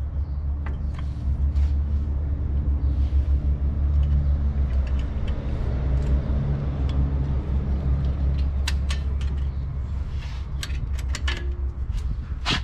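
Steady low rumble of a running engine, with sharp metallic clicks of drum brake parts being handled and fitted in the last few seconds.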